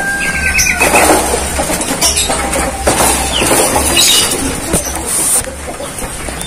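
Rain falling, a steady hiss, with a few short bird chirps over it.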